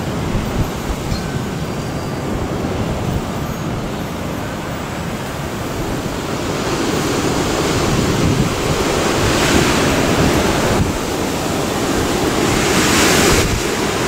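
Storm-force wind gusting, with a steady low rumble of wind buffeting the microphone. A rushing hiss swells in two strong gusts, about two thirds of the way through and again near the end.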